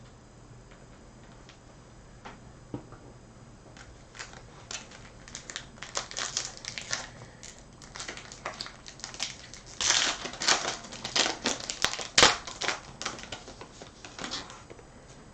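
Trading-card pack wrapper being crinkled and torn open: a run of irregular crackling rustles that starts about four seconds in, is loudest around ten to twelve seconds, and dies away near the end.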